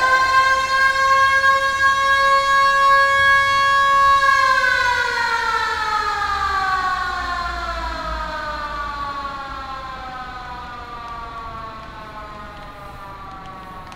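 Koshien Stadium's siren holding one steady note for about four seconds, then winding down in a long falling slide as it fades away. It marks the start of the team's practice session as the players take the field.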